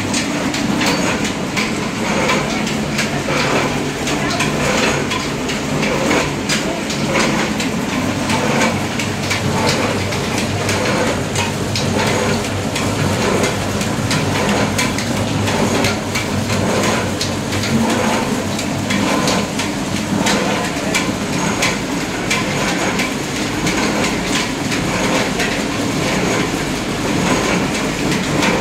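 Belt-driven screw oil expeller pressing mustard seed: a loud, steady machine clatter of rapid irregular knocks and rattles over a constant low drone from the drive.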